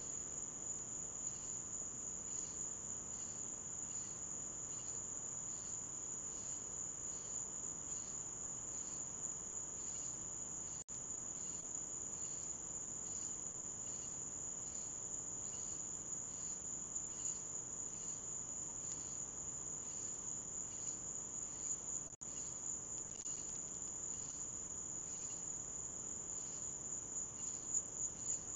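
A night chorus of crickets: a steady high-pitched trill with a second insect call pulsing evenly beneath it. The sound drops out for an instant twice.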